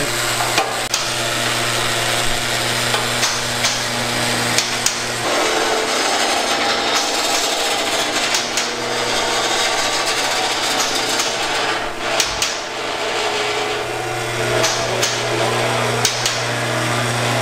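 Electric-hydraulic pump motor of a vehicle lift running with a steady low hum as the lift raises an SUV, with scattered sharp metallic clicks and clanks from the lift.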